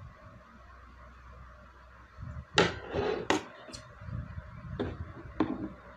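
Large steel tailor's shears snipping through cotton fabric: about five sharp cuts from about halfway through, over the low steady hum of an electric fan.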